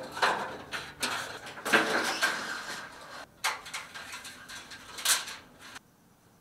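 Handling noise of parts and tools being moved: rustling, scraping and clattering with a few sharp clicks, cutting off abruptly near the end.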